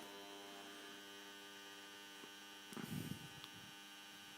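Faint, steady electrical hum with a buzzy stack of overtones, from a UPS running on battery during a power cut. A brief low rustle comes about three seconds in.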